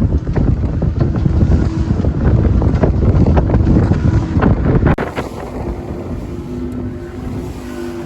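Small motorboat running through rough, choppy sea: heavy wind buffeting the microphone with scattered knocks. About five seconds in, it cuts to a quieter, steady drone of the boat's engine.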